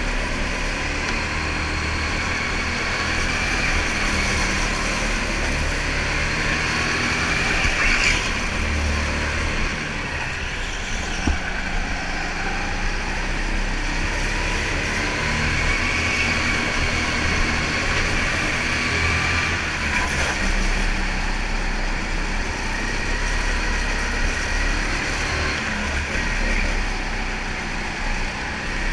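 Go-kart motor running hard on a lap, heard from on board; its pitch rises and falls slowly as the kart speeds up along the straights and slows for the corners.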